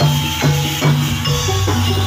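Live gamelan music for a jathilan horse dance: struck metal-keyed notes in a quick steady rhythm over low sustained tones and drum beats.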